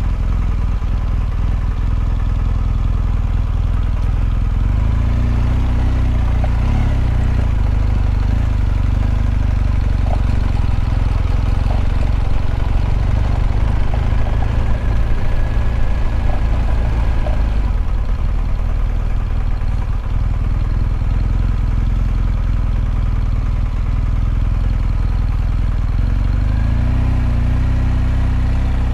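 BMW R1200GS boxer-twin engine running while under way, its note climbing and falling back about five seconds in and again near the end. A few light clicks come through in the middle.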